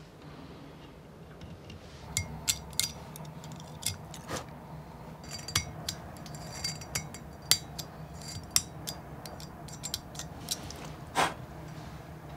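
Small blade carving and scraping a piece of plaster: irregular sharp clicks and short scrapes, starting about two seconds in, over a faint low hum.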